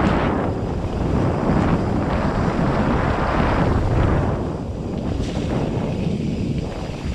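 Wind rushing over the camera's microphone as a mountain bike descends a dirt singletrack, over the low rumble of the tyres on the dirt. The rush comes in uneven surges and eases somewhat a little over halfway through.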